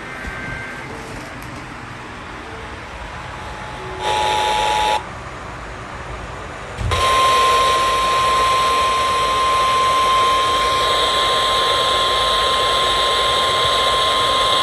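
Weather radio alert tones over receiver hiss: a one-second two-tone attention signal about four seconds in, then the steady single-pitch NOAA Weather Radio warning alarm tone from about seven seconds on, heralding a flash flood warning broadcast.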